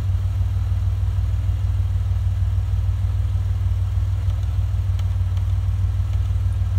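Car engine idling with a steady low hum, with a faint click or two from the tire inflator's buttons being pressed. The inflator's compressor itself is not yet running.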